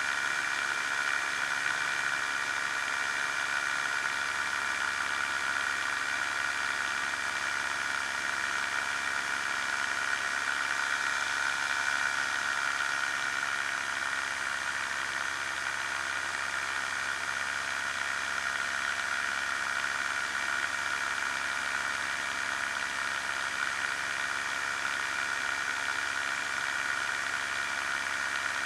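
Challenger II ultralight's pusher engine running steadily at a constant power setting in flight, under a steady rush of wind on the wing-mounted camera.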